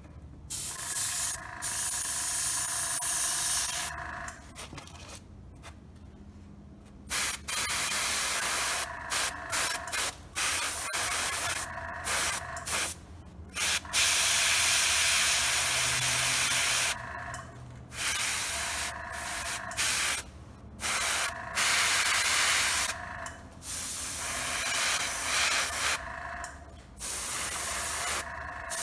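Airbrush spraying paint in about a dozen on-off bursts of hiss, each from under a second to several seconds long; a few bursts carry a steady whistling tone.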